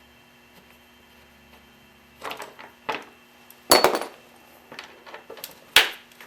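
Tools and metal motorcycle front-end parts clanking and knocking as they are handled: quiet for about two seconds, then a few separate knocks, the loudest about four seconds in and another near the end.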